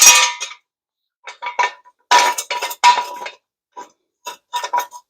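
Steel jack stands being handled and set under a raised car: irregular metal clanks and clinks with a ringing tone, loudest at the start, then in small clusters.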